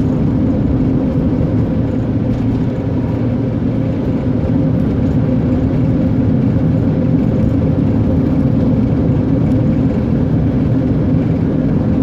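A car's engine and tyres on the road, heard inside the cabin while driving at steady speed: a constant low drone with a steady hum, unchanging throughout.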